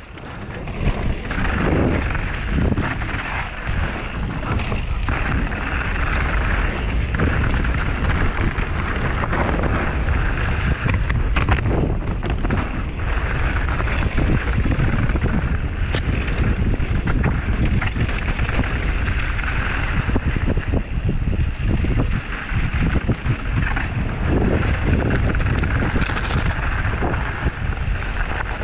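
Wind rushing over the microphone of a mountain bike's on-board camera as it rides fast downhill, with the tyres rumbling over dirt and gravel and short knocks and rattles of the bike over bumps.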